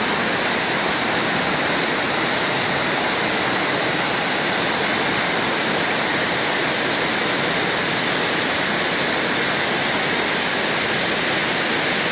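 A waterfall, its water falling and splashing in a steady, unbroken rush.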